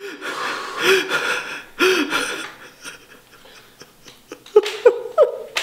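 A man gasping and breathing hard in distress, with short strained voiced sounds mixed in: rough breaths over the first two seconds or so, a quieter stretch, then a few short cries near the end.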